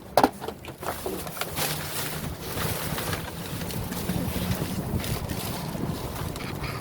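Rummaging through discarded groceries in a dumpster: packages being shifted and rustling, with a sharp knock about a quarter second in, over steady wind noise on the microphone.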